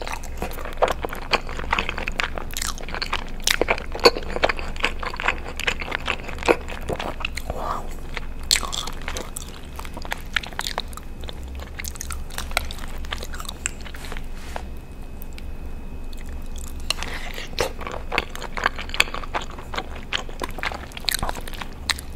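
Close-miked chewing and wet mouth sounds of eating cheesy Alfredo pasta, with many small crackly clicks. The sounds come thickly for the first several seconds, thin out in the middle, and pick up again later.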